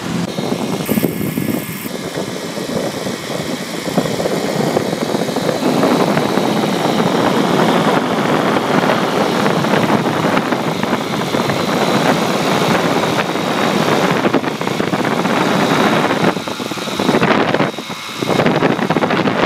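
Rotax two-stroke engines of light kit aircraft running on the ground with their propellers turning: a steady, dense engine and propeller noise that dips briefly near the end.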